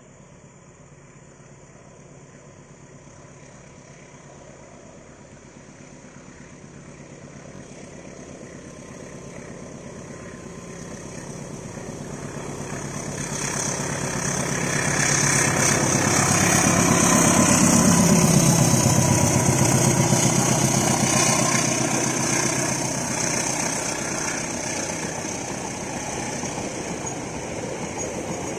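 A diesel-electric locomotive hauling a passenger train approaches, its engine growing steadily louder. Its engine note drops in pitch as it passes about eighteen seconds in. The carriages then roll past with a steady rumble of wheels on rail.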